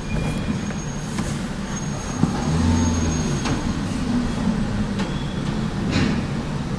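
Steady low rumble of the Vereina car-shuttle train heard from inside a car in its covered wagon, with a thin high squeal on and off and a few light clicks.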